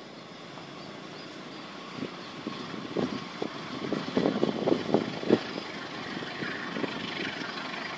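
Diesel-hauled passenger train approaching from inside a tunnel: a rumble that grows louder, with a run of uneven thumps about two to five seconds in, then a rising hiss near the end.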